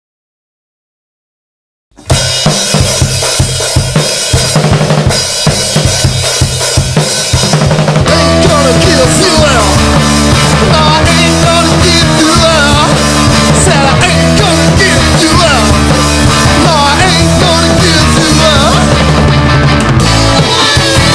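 Near silence for about two seconds, then a rock band starts with the drum kit alone. About eight seconds in, a low bass part and an amplified harmonica join, the harmonica cupped against a handheld bullet microphone and playing bending melody lines.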